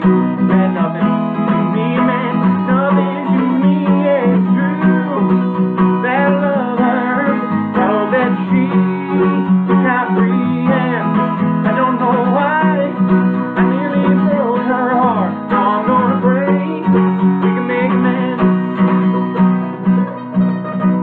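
Acoustic guitar strumming steady chords while a second guitar picks single-note lead lines over it, playing without a break.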